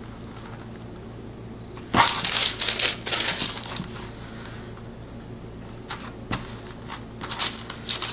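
A cut-out paper heart being folded, unfolded and slid across a stretched canvas under the hands: short bursts of crisp paper rustling with light taps, about two seconds in and again near the end.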